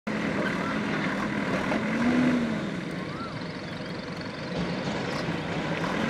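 JCB backhoe loader's diesel engine running, its pitch rising briefly about two seconds in and then settling back.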